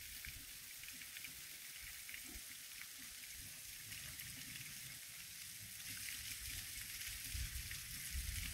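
Faint, steady splashing hiss of a thin trickle of water falling from a sandstone ledge into a shallow pool, with wind buffeting the microphone near the end.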